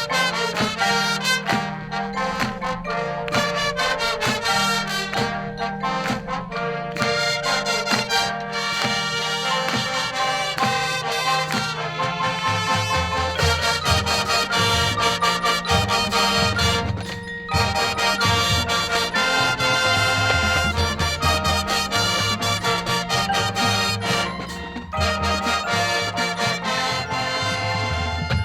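Marching band playing: massed brass (trumpets and trombones) holding sustained chords over a steady drumline beat, with brief breaks in the sound about 17 seconds in and again near 25 seconds.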